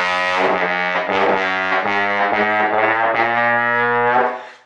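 Trombone being played: a short phrase of several held low notes, changing pitch about every half second, fading out near the end.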